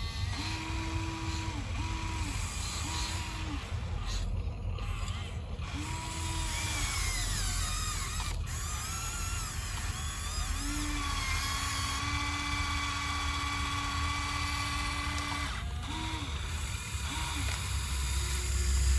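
Electric motors of a radio-controlled model construction machine whining in short on-off bursts, then in one longer run of about five seconds in the middle, over a steady low rumble.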